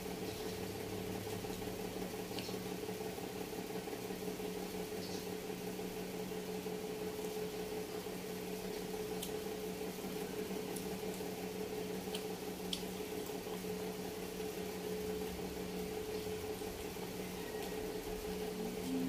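Steady hum of a household appliance running, with a few faint clicks scattered through it as a person eats with her fingers.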